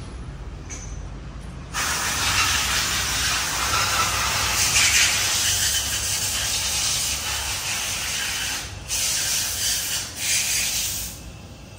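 Pressurised gas hissing out in one long, loud blast that starts suddenly about two seconds in, breaks off briefly twice near the end, then stops.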